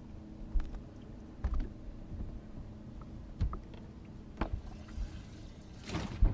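Scattered knocks and clicks of handling on a fishing boat's deck and fittings, over a steady low hum. A short rushing, splash-like noise comes with a couple of knocks near the end.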